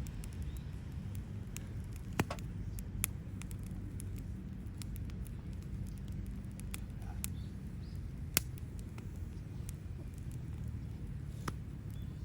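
Wood fire burning, crackling with scattered sharp pops, the loudest about 2, 3 and 8.5 seconds in, over a steady low rumble.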